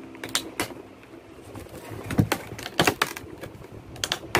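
Clear plastic clamshell packaging crackling and snapping as it is pried open, in irregular sharp clicks, the loudest about two seconds in.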